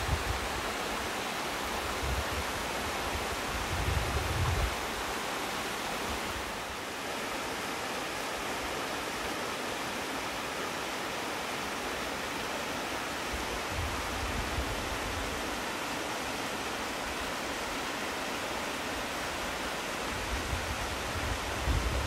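Steady rush of water from a small two-tier waterfall about seven metres high. A few brief low rumbles come and go over it.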